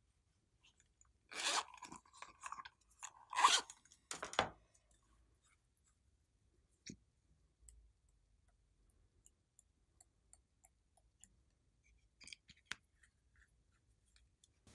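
Hands handling small craft items: a cluster of short, loud rustling handling noises in the first few seconds, then scattered faint clicks and taps.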